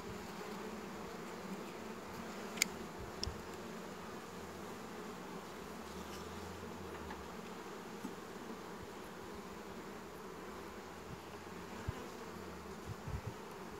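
Honeybees humming steadily around an open hive frame crowded with bees, with a few faint clicks.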